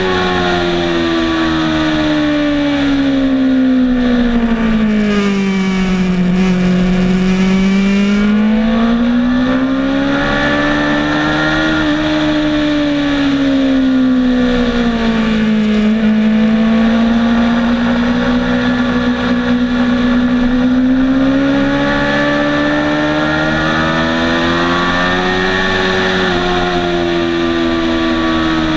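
Motorcycle engine heard from on board at track speed. The revs sink steadily over the first several seconds, climb again, dip once more mid-way, then rise slowly with a small drop near the end, following the bike's braking and acceleration through the corners.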